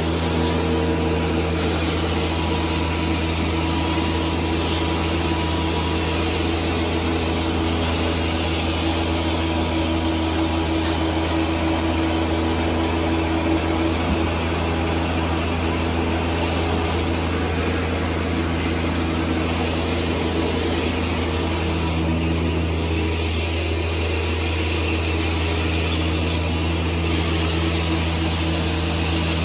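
Hot-water carpet extraction machine running steadily: a constant motor and vacuum drone, with the hiss of the wand spraying hot water into the carpet and sucking it back up.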